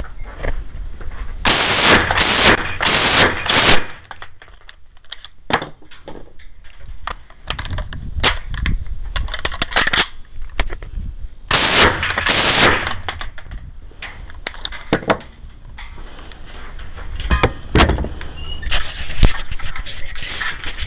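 Uzi submachine gun firing short full-auto bursts: four bursts in quick succession about a second and a half in, then two more around twelve seconds in. Scattered single gunshots fall between and after the bursts.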